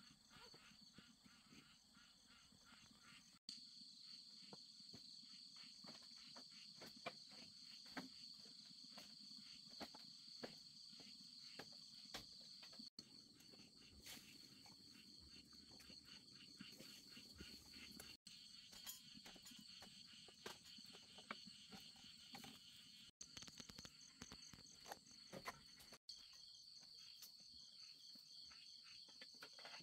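Faint night insects chirring steadily in a high continuous trill, with scattered small clicks and taps.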